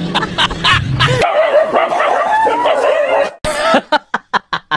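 A dog whining and yelping in a wavering pitch for about two seconds, starting a little over a second in. Near the end, a run of short, evenly spaced pulses follows, about three to four a second.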